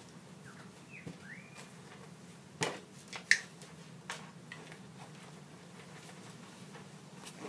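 A few short, sharp clicks and knocks from backpack gear being handled. The loudest comes about a third of the way in, between quieter ones just before and after.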